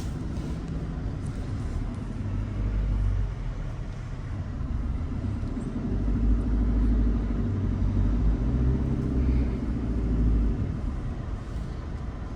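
Low rumble of a car driving along a road, engine and tyres, swelling louder twice, the longer swell from about halfway in with a steady engine hum over it.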